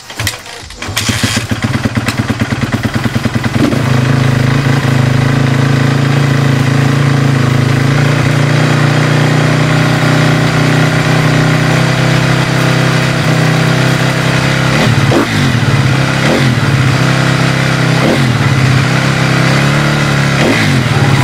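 2012 Honda CRF250R's single-cylinder four-stroke engine catching from a kickstart about a second in, running unevenly for a few seconds, then idling steadily. Near the end the throttle is blipped about five times in short revs.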